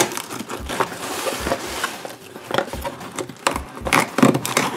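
A knife cutting and scraping through packing tape and cardboard on a parcel box, with irregular knocks, scrapes and cardboard rustling as the box is held and worked.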